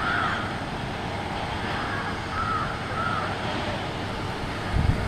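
Airbus A320neo's CFM LEAP-1A jet engines rumbling steadily on its landing roll, with crows cawing several times over it and a couple of low thumps near the end.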